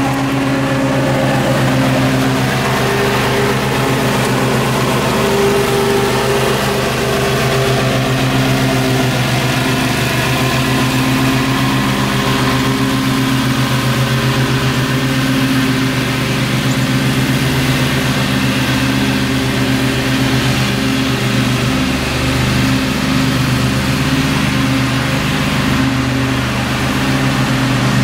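Gravely zero-turn riding mower's engine running steadily with the blades engaged, mowing grass.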